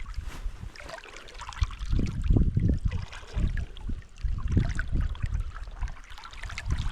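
Gusty wind buffeting the microphone in irregular low rumbles over the hiss of running river water.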